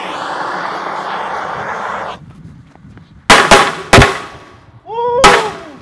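Hand-held gas torch hissing steadily for about two seconds as it lights the fuses, then four firecrackers set in Jello going off: three sharp bangs within about a second, and a fourth a little over a second later.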